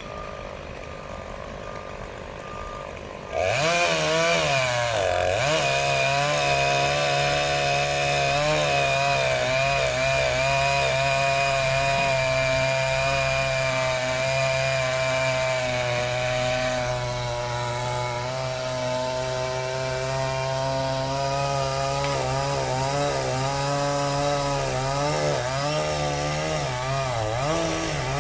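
Chainsaw running at high revs, coming in suddenly about three seconds in and held steady. Its pitch dips and recovers briefly just after it starts and several times near the end.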